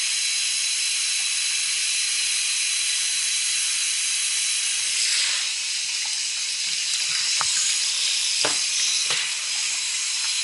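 Water from a handheld shower head spraying onto a tiled floor and a wet kitten: a steady hiss, with a few short knocks near the end.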